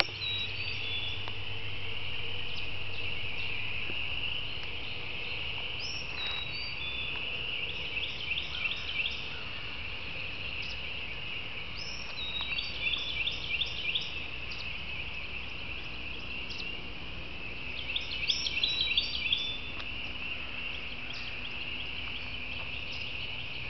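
A dense frog chorus trilling as a steady high-pitched drone, with a bird singing a short song of rapid chirps about every six seconds over it.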